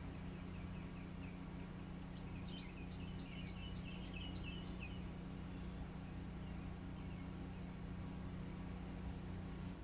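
50 kW DC fast charger humming steadily while delivering charge, with a quick run of small-bird chirps during the first half.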